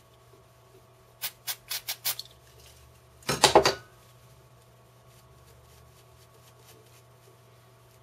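Aerosol can of carburetor cleaner sprayed onto small record-changer parts: five short squirts about a second in, then one longer, louder burst of about half a second.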